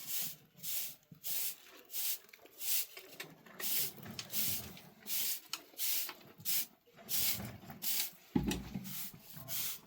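Rhythmic scraping strokes of a tool working over the floor of a sheep pen, about one and a half strokes a second, with a dull thump near the end.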